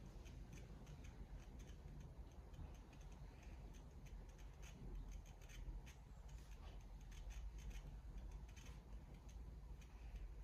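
Near silence: a low room hum with faint rustling and scattered light ticks.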